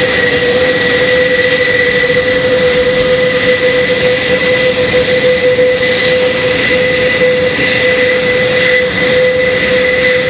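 Airbus A400M Atlas's four TP400-D6 turboprop engines and eight-bladed propellers running on the ground: a loud, steady whine with a strong high tone over a rushing drone.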